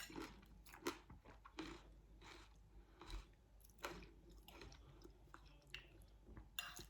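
Faint chewing and crunching of a mouthful of fresh fruit, coconut and ice, with soft bites coming about once a second.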